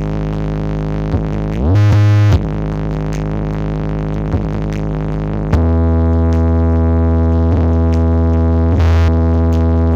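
Electronic dance music with heavy sustained bass notes played loud through a large stacked sound system of horn-loaded speaker cabinets. A rising synth sweep comes about two seconds in, and the music steps up louder with stronger bass a little past halfway.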